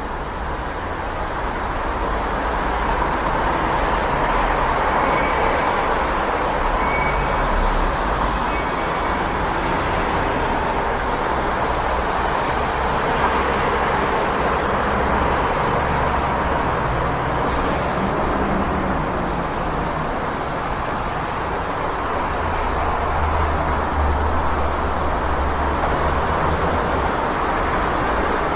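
City street traffic: a steady wash of passing road vehicles with a low engine rumble that swells and eases, and a few faint short high chirps over it.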